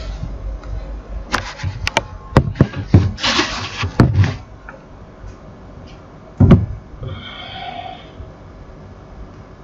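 A quick run of sharp clicks and knocks, then one louder thump about six and a half seconds in.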